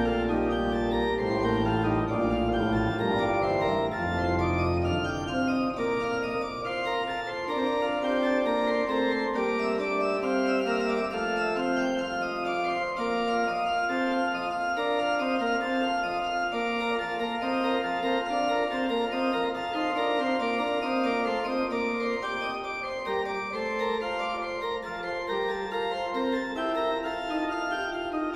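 Organ music: slow, sustained chords that change every second or two, with deep bass notes in the first few seconds that then drop out.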